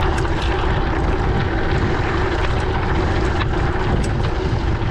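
Mountain bike being ridden on an off-road trail: a steady rushing of wind on the microphone and tyre rumble, with scattered light clicks and rattles.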